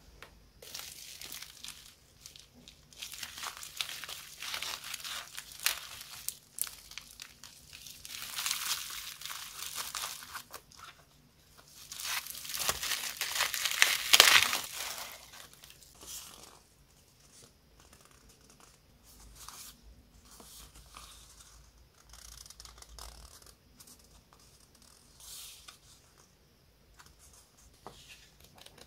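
Bubble-wrap and plastic packaging crinkling and crackling as a parcel is unwrapped by hand, in uneven bursts that are loudest about halfway through. After that, softer rustling of paper cards and plastic sleeves being handled.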